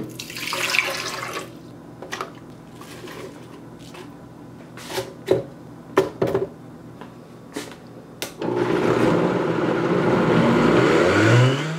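Water poured into a Vitamix blender jar, then several sharp knocks as frozen banana, apple and spinach are dropped in. About eight and a half seconds in, the blender's motor starts and runs loudly, its pitch rising near the end as the speed dial is turned up.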